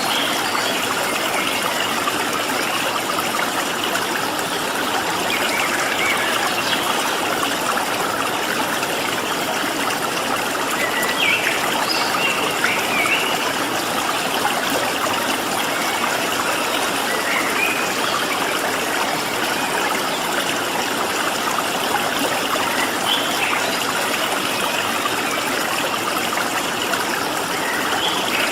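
Steady rush of a flowing stream, with faint short bird chirps scattered through it.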